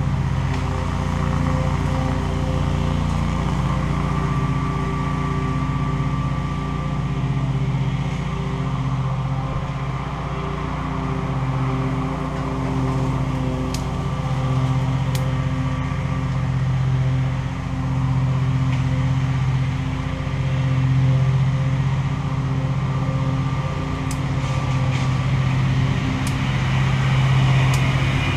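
Petrol lawn mower engine running steadily, its hum swelling and fading a little in loudness. A few faint small clicks in the second half.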